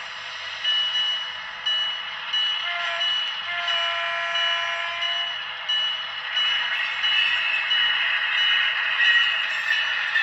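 Model diesel locomotive's LokSound sound decoder playing through its small speaker as the locomotive moves off: a steady engine sound, a bell dinging about twice a second, and a held horn note from about three seconds in to about five seconds in.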